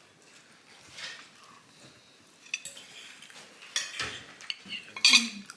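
Forks and plates clinking at a table while cake is eaten: scattered light metal-on-china clicks, with a louder clatter a little after five seconds.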